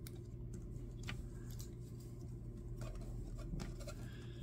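Faint, scattered clicks and light handling of a small plastic action figure, its joints and wings being moved by hand, over a low steady hum.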